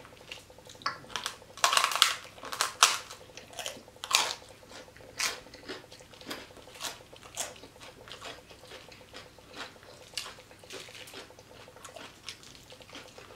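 Close-mic chewing of crunchy fried pork skin (chicharrón): a quick run of sharp crackling crunches in the first few seconds, then softer, sparser crunches.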